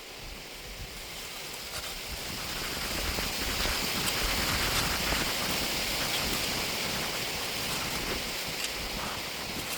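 Steady rush of river water at the bank, growing louder over the first few seconds and then holding even.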